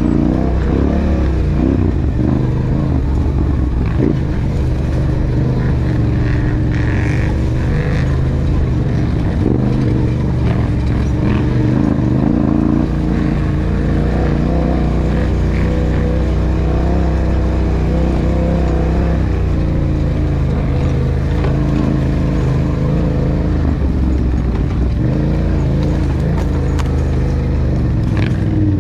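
Yamaha sport quad fitted with a swapped-in MT-07 parallel-twin motorcycle engine, running steadily under throttle on a dirt trail, the revs rising and falling a little.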